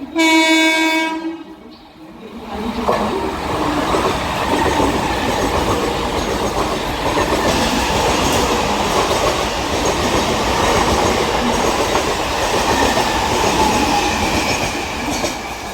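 A train horn blasts loudly for about a second and a half and fades. From about two and a half seconds in, a train runs through the station at speed without stopping, a loud, steady noise of wheels on the rails.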